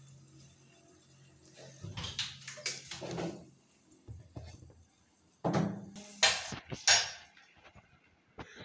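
Metal kitchenware clattering: a steel ladle and aluminium pot lid knocked about and lifted off a cooking pot, with a few sharp clinks about two seconds in and louder clanks around five to seven seconds in. A low hum underneath stops a few seconds in.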